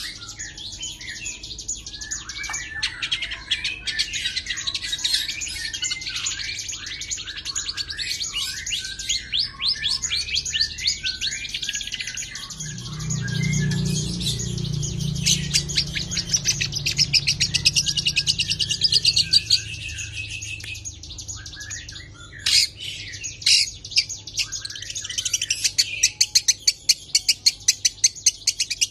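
Long-tailed shrike (cendet) singing continuously: a fast, varied song of chirps and mimicked phrases, broken by runs of rapid repeated notes.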